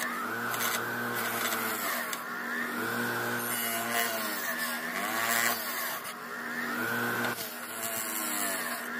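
Bench grinder running with a wire wheel, brushing paint and rust off a small sheet-metal part held against it. The motor's whine sweeps up and down in pitch about once a second as the part is worked, over a steady hum.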